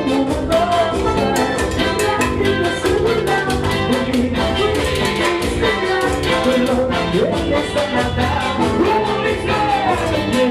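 Live Latin band music with a steady beat, brass or keyboard melody lines and some singing.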